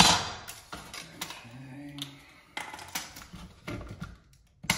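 A steel two-foot carpenter's square clanks down onto a wooden bench, the loudest knock, followed by lighter clicks and knocks as a tape measure is handled and laid along it.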